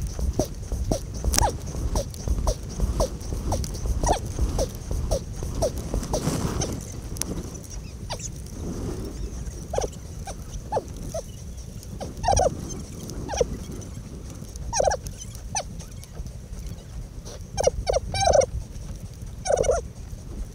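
Sound from a double scull under way, played at four times speed so everything is high and squeaky: quick rhythmic sounds about twice a second, in step with the sped-up rowing strokes, over a rumble of wind. In the second half come several louder, chirpy sounds with a bending pitch.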